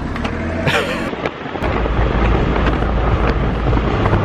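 Car engine running just after being started. The low hum grows louder and deeper about a second and a half in.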